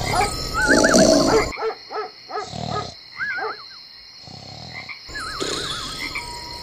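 Cartoon snoring sound effect: rasping snores alternating with a wavering, whistled exhale, repeating several times, over a steady high-pitched tone in the background.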